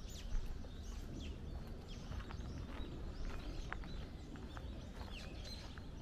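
Small birds chirping with many short, quick notes, over the crunch of footsteps on a path.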